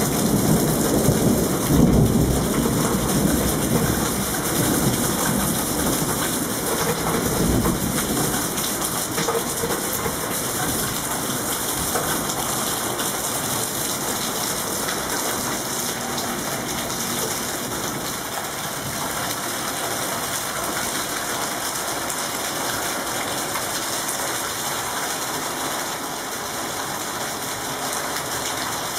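Steady rain falling and pattering on surfaces. A low rumble is heaviest at the start and fades away over the first eight seconds or so.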